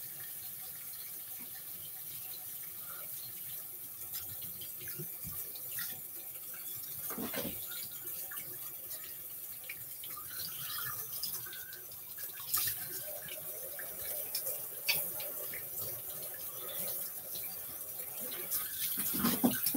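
Kitchen tap running steadily into the sink, drawing bath water, with a few light knocks.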